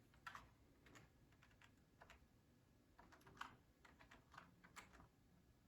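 Faint typing on an EDJO 2.4G full-size wireless computer keyboard: irregular key clicks, a few per second.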